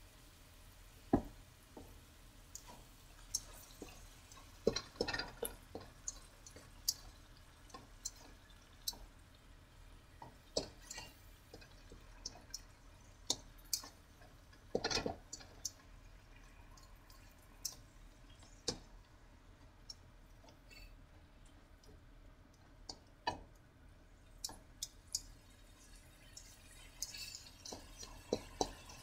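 Ground meat and diced tomatoes sizzling in a wok: a faint steady hiss with irregular pops and spits. A spatula stirs and scrapes the pan about halfway through.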